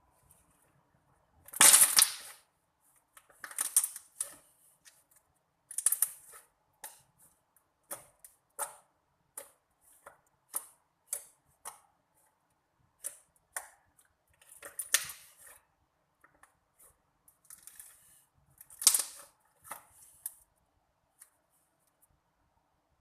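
Slime being pressed and played with by hand, giving an irregular string of sticky clicks and pops, with a few longer, louder crackling bursts among them.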